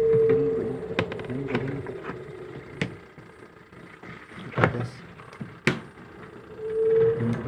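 A steady hum that stops about a second in and comes back near the end, with a handful of sharp clicks and knocks in between.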